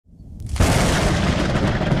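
Thunderclap sound effect: a low rumble builds, then a loud crack of thunder breaks about half a second in and rolls on as a heavy rumble.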